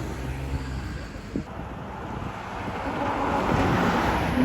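Steady road and engine noise of a car in motion, with a rushing noise swelling about three seconds in.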